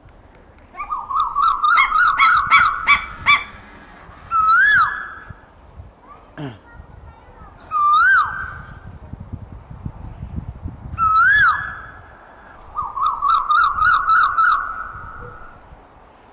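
Asian koel calling: a fast run of repeated whistled notes, then three single loud notes that each rise and fall, about three seconds apart, and near the end another short run of quick notes.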